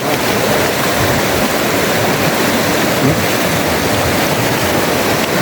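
Loud, steady rush of flowing river water.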